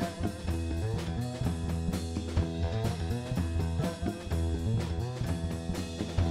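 Background music: a blues-rock track with guitar over a steady drum beat.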